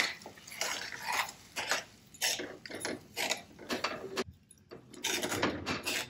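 Metal spoon stirring a thick, wet curry in a steel kadai, scraping and clinking against the pan in irregular strokes, with a short pause and then a longer run of stirring near the end.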